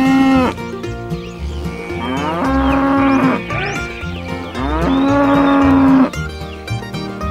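Cows mooing: three long moos, one ending just after the start, one about two and a half seconds in and one about five seconds in, each rising in pitch and then held steady, over background music with a steady beat.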